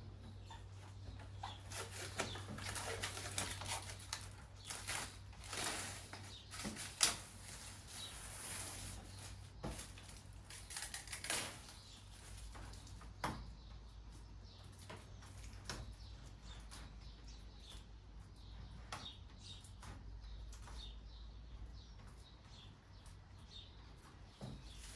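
Protective plastic film being peeled and crumpled off a whiteboard: irregular rustling and crackling, busiest in the first half, with a few sharp knocks, over a steady low hum.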